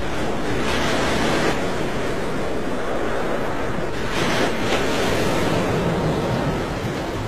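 Rushing, churning water of a swirling whirlpool, a steady roar that swells about a second in and again about four seconds in.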